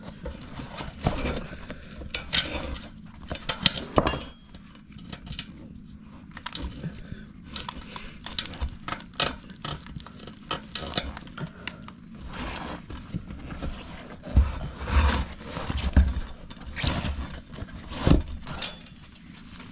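Metal tools and wheel parts being handled: an irregular series of clinks and knocks, some louder thumps among them.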